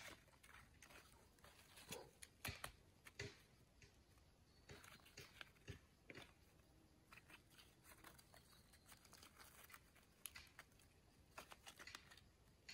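Faint, scattered crackles and rustles of dried wild mushrooms being plucked by hand from the forest floor among dry leaves.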